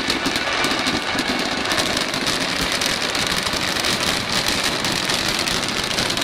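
Fireworks display crackling in a dense, continuous barrage of small pops that merge into a steady rumble.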